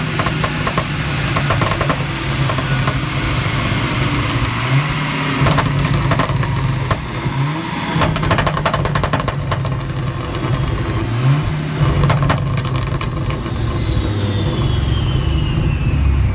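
Volkswagen Golf 6R's turbocharged 2.0-litre four-cylinder engine running with several quick rises in revs. Between them, as the throttle closes, the exhaust crackles and pops repeatedly on overrun.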